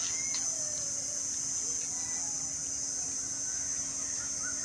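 Steady high-pitched trilling of insects in a continuous chorus.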